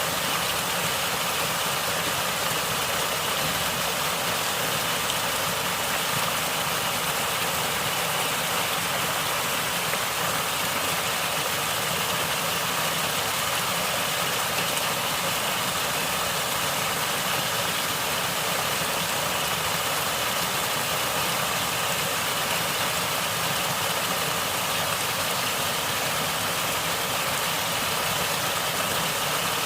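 Natural flowing water running steadily, an even rushing gurgle with no breaks.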